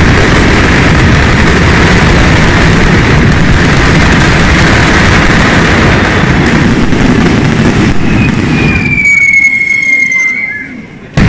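A batteria, a long chain of firecrackers laid along a street, going off in a very loud, continuous rapid crackle of bangs that dies away about nine seconds in. A high, slightly falling whistle-like tone follows, and a single sharp bang comes right at the end.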